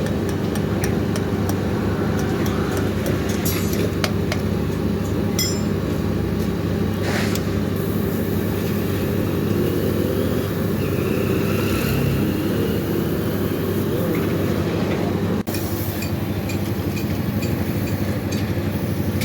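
Steady low engine-like hum running throughout, with a few light clicks and clinks scattered over it.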